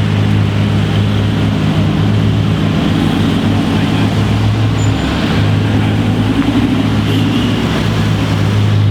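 Lamborghini engine running steadily at low revs, a deep, even drone, its note swelling slightly twice.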